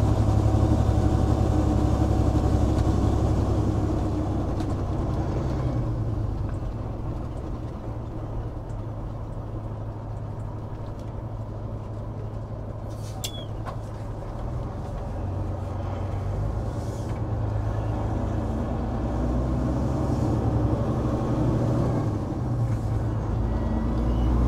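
Caterpillar C15 diesel of a Peterbilt 389 running under way, heard from behind the cab near the exhaust stacks as a deep steady engine note. It eases off through the middle and builds again toward the end, with one short click about 13 seconds in.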